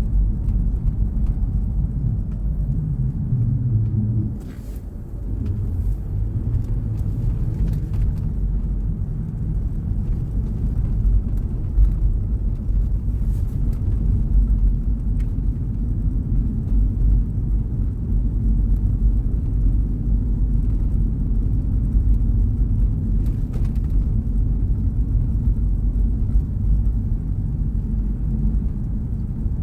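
A car driving on snowy city roads, a steady low rumble of road, tyre and engine noise. It eases off briefly about four seconds in.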